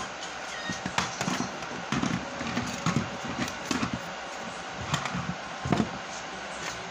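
Irregular knocks and bumps as hands handle a wooden board overhead, roughly one every second, with a louder double knock near the end, over a steady hiss.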